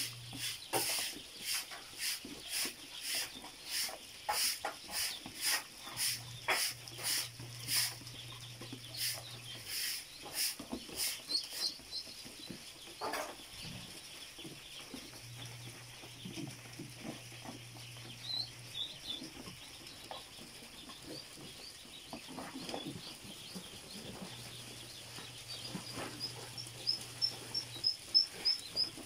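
A crowded brood of ducklings peeping, with sharp, evenly spaced calls at about two a second for the first ten seconds, then fainter scattered peeps and quick runs of high peeps near the end. A low hum switches on and off a few times underneath.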